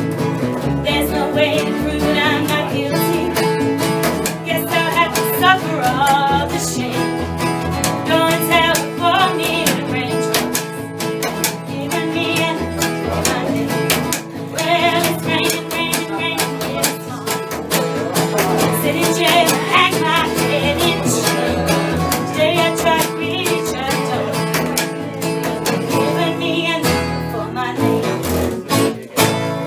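Live acoustic guitar and upright double bass playing a country/bluegrass tune together: the guitar is strummed and picked over a plucked bass line, with a brief drop in the music near the end.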